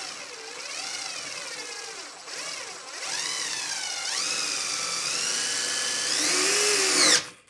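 DeWalt 20V MAX brushed impact driver driving a long lag bolt into wood, its motor whine wavering in pitch as the load changes. It gets louder about three seconds in, then climbs sharply in pitch near the end and stops abruptly.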